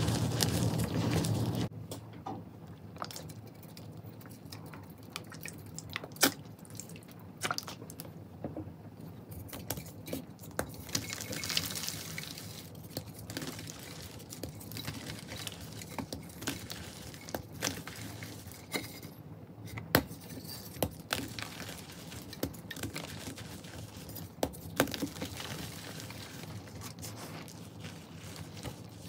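Hands crushing and crumbling dyed chalk into powder: soft dusty crunching with many scattered sharp crackles and snaps. A louder stretch with a low hum in the first second and a half cuts off abruptly.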